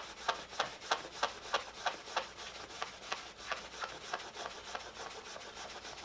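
Paper towel wetted with mineral spirits scrubbed back and forth over a vinyl surface to lift permanent marker, about three rubbing strokes a second, lighter toward the end.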